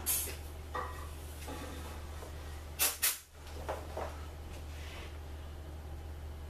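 Scattered knocks and clatter of tools and metal parts being handled at a workbench, loudest as two sharp clacks about three seconds in, over a steady low hum.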